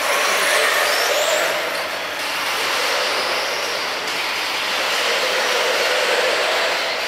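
Electric motors of 1/8-scale Tekno EB48 RC buggies whining as they race on a dirt track, the pitch sliding up and down as the cars speed up and slow, over a steady rushing noise.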